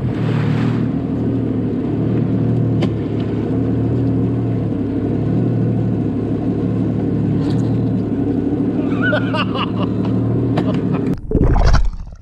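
Jet ski engine running steadily at low speed, with water churning around the hull, heard up close from the craft. About eleven seconds in the engine sound stops and a short, loud low rumble follows.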